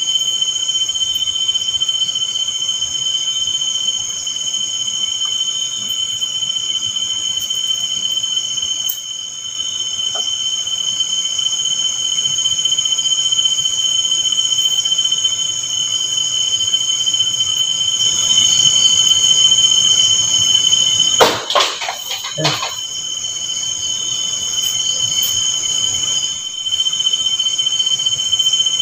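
Night insects chirring steadily at a high pitch. About three-quarters of the way through there is a brief clatter of sharp knocks.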